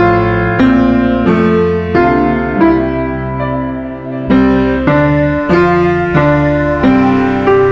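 Soft background piano music, with chords or notes struck about every two-thirds of a second and left to ring.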